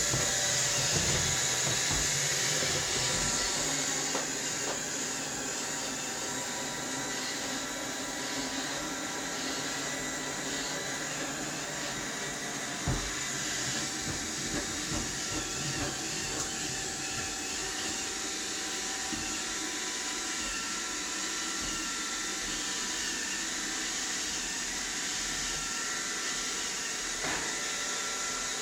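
Roomba robot vacuum running: a steady hiss with several constant whining motor tones, and a single knock about thirteen seconds in.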